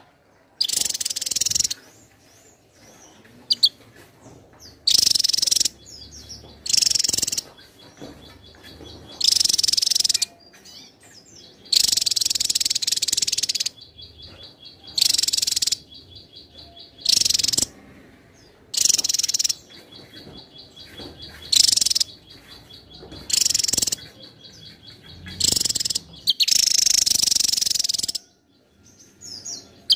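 Javan tesia singing: about a dozen loud, high twittering phrases of around a second each, coming in quick succession with short pauses, and a faint rapid ticking trill in some of the gaps.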